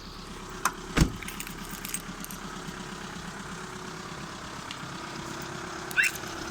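Volkswagen Golf 4 1.9 TDI diesel engine idling steadily. Two sharp clicks come about a second in, the second one louder, and a brief high chirp sounds near the end.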